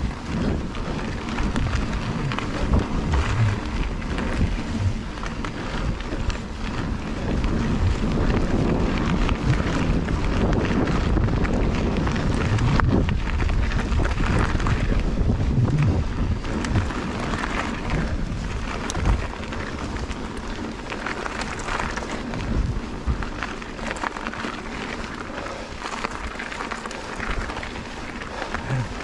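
Mountain bike being ridden over a dirt forest trail: knobbly tyres rolling and crunching on dirt, with the chain and frame clattering over bumps and wind buffeting the microphone. Louder through the middle stretch.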